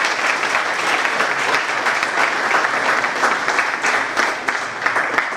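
An audience applauding, a dense patter of many hands clapping that dies away near the end.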